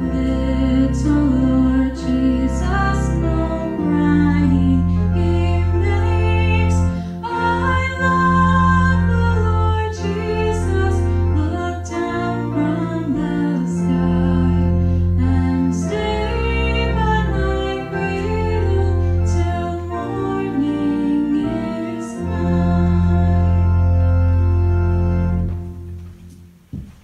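Pipe organ accompanying a woman singing a hymn. The organ holds long low notes phrase by phrase under the sung melody, and the music ends near the end on a final chord that dies away.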